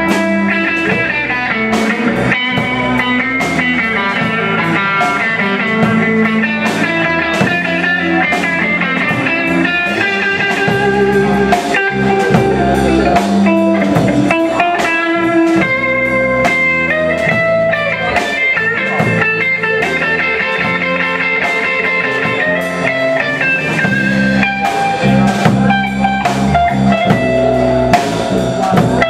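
Live rock band playing an instrumental passage with no singing: electric guitars over a drum kit with a bluesy feel.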